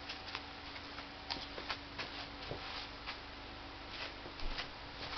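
Quiet room tone with a faint steady hum and a scattering of small, light clicks.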